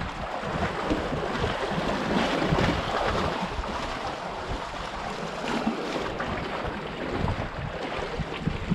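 Wind buffeting the microphone over small waves washing and splashing against shoreline rocks, in uneven gusts.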